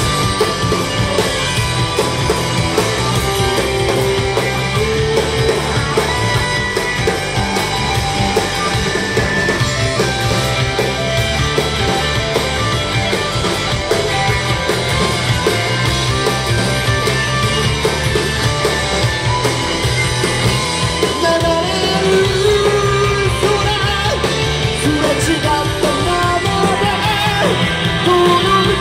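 Live rock band playing loud and without a break: electric guitars and drums, with singing.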